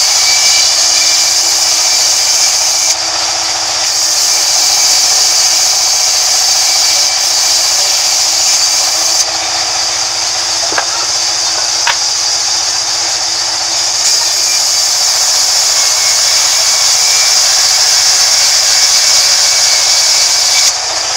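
Sawmill band saw running and ripping a timber board, a steady high-pitched hiss of the blade in the wood over the hum of the machine. The hiss eases off for a few seconds twice, and there are a couple of light clicks near the middle.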